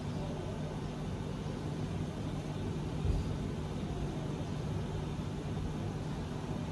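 Steady low machine hum with a rush of air from a generator unit running close by, with one soft thump about three seconds in.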